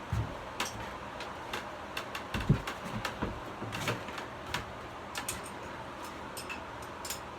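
Hand tools working on the engine: a wrench clicking and clinking against metal parts at irregular moments, with a duller knock about two and a half seconds in, as the carburetor is being unbolted.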